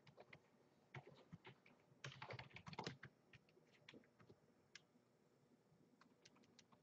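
Faint typing on a computer keyboard: scattered key clicks, with a quick run of keystrokes about two to three seconds in.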